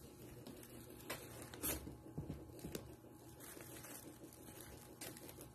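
Faint, scattered rustling and crinkling of a plastic bag as kittens push against it, with a few sharp crackles, the loudest about a second and a half in.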